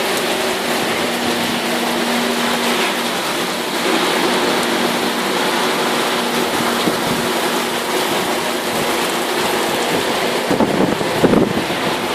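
Heavy rain pouring steadily, a dense even hiss, with a faint low hum under it and a brief louder patch near the end.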